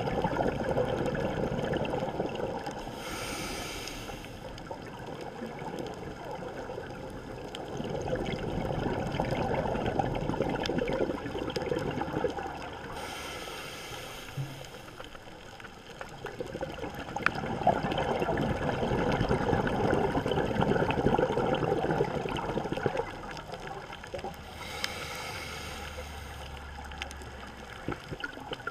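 Scuba diver breathing through a regulator underwater: three breaths about ten seconds apart, each a short hiss as air is drawn in, followed by several seconds of gurgling exhaust bubbles.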